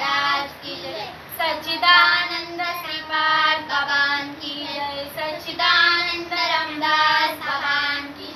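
A woman singing a devotional chant solo, without accompaniment, in long held notes.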